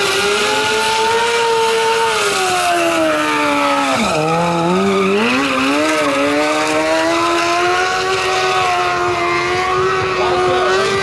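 Sport bike engine held at a steady revving pitch, dipping sharply about four seconds in and climbing back up.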